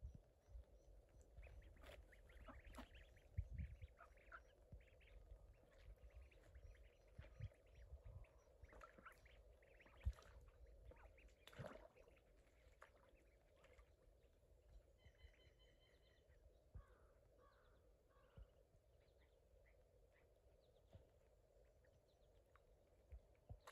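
Faint, scattered short calls of ducks and ducklings, sparse over a low rumbling background, with one sharp click about ten seconds in.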